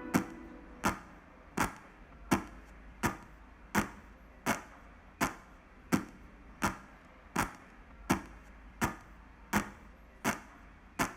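A single sharp percussive tick, like a woodblock or rim click, repeating at an even tempo of about four beats every three seconds, with nothing else playing.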